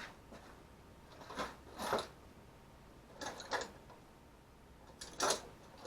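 Small hand tools being picked up, shifted and set down, giving short clicks and rattles in several separate bursts.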